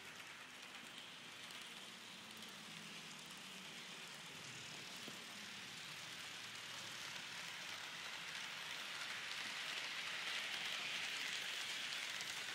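Roco ICN model train running along model railway track: a steady rolling hiss of its wheels on the rails that grows louder toward the end as the train passes close by.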